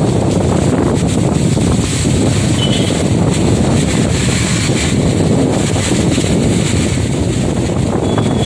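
Gale-force storm wind with heavy rain, the wind buffeting the microphone in a loud, steady rumbling rush that cuts off suddenly at the end.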